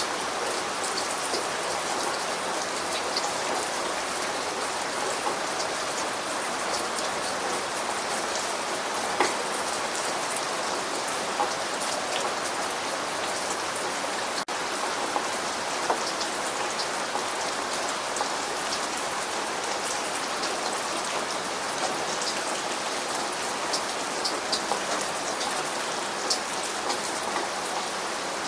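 Steady rain falling, an even hiss dotted with the sharp ticks of single drops, with a brief dropout about halfway through.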